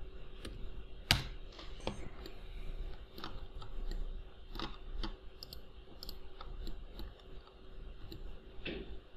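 Irregular clicks of a computer mouse and keyboard, about one or two a second, with one sharper click about a second in.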